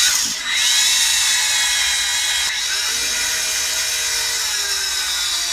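Small power drill running with a larger bit, drilling the head off a rivet post on a diecast zinc-alloy model car to free its baseplate. Its steady whine dips briefly about half a second in and sags slightly in pitch as the bit bites into the metal.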